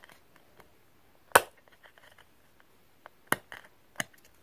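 Sharp clicks and snaps of hard plastic as fingers work at the little door of a plastic toy house, three louder clicks with faint ticks between, the loudest about a second and a half in.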